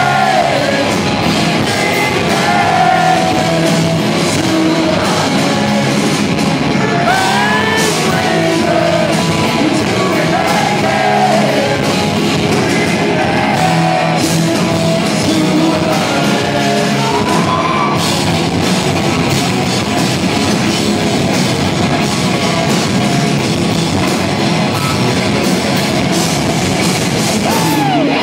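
Live hard rock band playing loudly: distorted electric guitars, bass guitar and drums, with a man's lead vocal singing over them, heard from the audience in a large hall.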